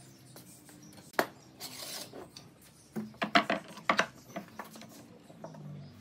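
Steel pipe clamps being handled and set across a pine board panel: a sharp metallic clink about a second in, a short scrape, then a cluster of clicks and knocks around three to four seconds in.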